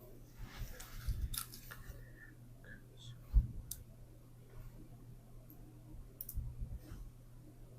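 Scattered small clicks and brief rustles of hands handling things during acupuncture needling, with one low thump about three and a half seconds in, over a faint steady hum.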